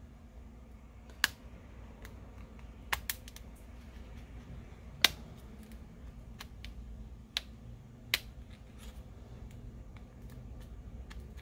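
A handful of sharp, irregular clicks and ticks as a thin metal iSesamo pry tool is worked between a Google Pixel's outer frame and its middle frame to pry the middle frame loose; the loudest click comes about five seconds in.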